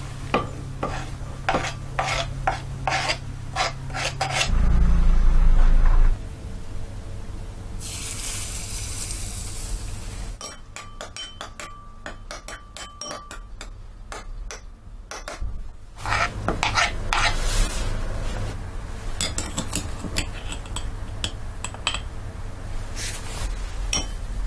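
A metal spoon scraping and clinking against a small glass bowl, in many short clicks and scrapes, as minced garlic, chili and white granules are spooned in. A loud low rumble lasts about a second, about five seconds in, and there is a brief hiss a few seconds later.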